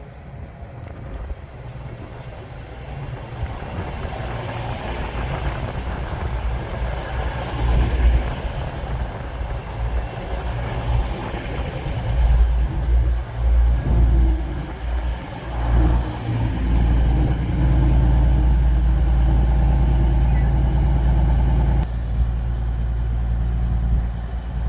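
Class 222 Meridian diesel multiple unit's underfloor diesel engines running as it prepares to depart, a low drone growing steadily louder, uneven for a few seconds past the middle, then holding steady and loud.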